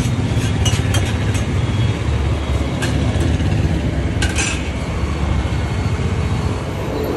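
Steady low rumble of road traffic and engines, with several sharp metallic clinks over it, the clearest about three and four seconds in.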